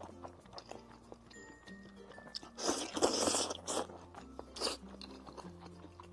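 A person loudly slurping up a mouthful of saucy instant noodles in one long slurp of about a second mid-way, then a shorter slurp and chewing sounds, over background music with a steady bass line.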